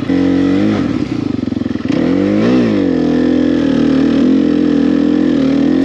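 Enduro dirt bike engine running close by under throttle, with one quick rev that rises and falls about two and a half seconds in, then holding a steady pitch.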